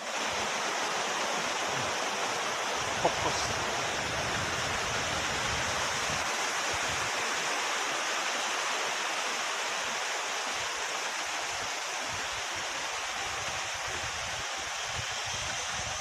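Small waterfall pouring over a stone weir in a mountain stream: a steady rush of falling water.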